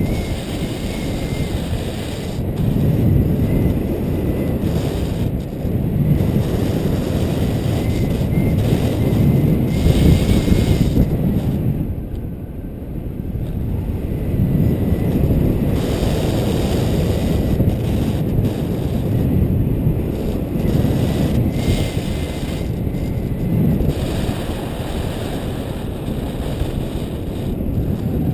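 Wind buffeting the microphone of a paraglider harness-mounted camera in flight: a loud, low rushing that swells and eases every few seconds, briefly quieter about twelve seconds in.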